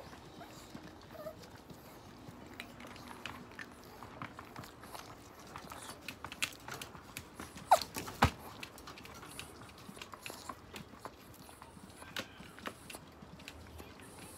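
Chihuahuas moving about inside a wire pen: scattered light clicks and taps, with two sharp, loud clicks close together about eight seconds in.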